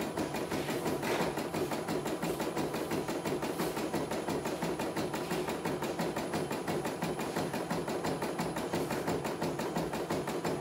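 CNY E900 portable computerized embroidery machine stitching a design, its needle mechanism running in a rapid, even clatter of about ten stitches a second as the hoop carriage moves the fabric.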